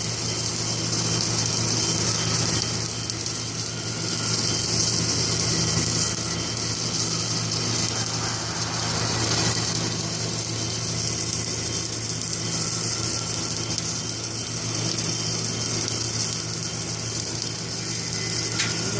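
Submerged arc welding machine with its pipe rotator running: a steady low electrical hum under a constant high hiss.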